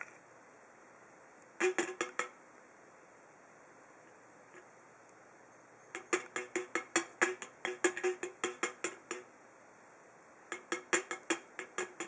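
Budgerigar pecking and tapping its beak against the pull tab of an aluminium soda can, giving quick metallic clinks, about six or seven a second. A short burst comes about two seconds in, a longer run of some twenty taps in the middle, and another short burst near the end.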